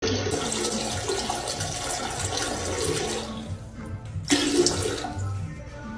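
Water rushing, starting suddenly, easing off after about three seconds and surging again briefly near the end.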